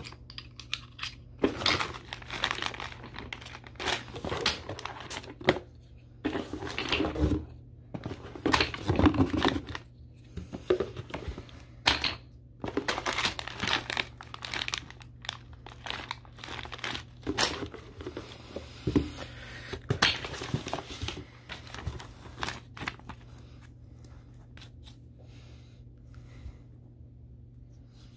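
Unpacking noise: rustling of a cardboard box and crinkling of small plastic bags of screws, with scattered clicks and knocks of plastic clamp parts. The handling dies down to quiet for the last several seconds.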